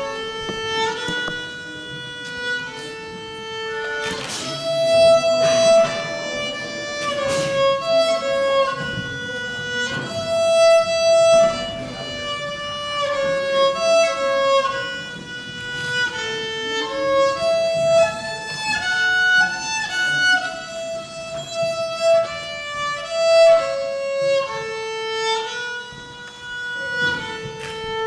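A child playing a slow melody on the violin, one bowed note after another, each held for a moment.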